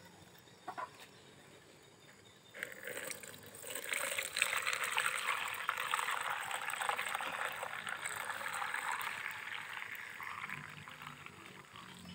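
Arenga palm sap poured from a plastic jerrycan into a plastic strainer, splashing and trickling steadily. The pour starts about two and a half seconds in and eases off toward the end, after a couple of light knocks near the start.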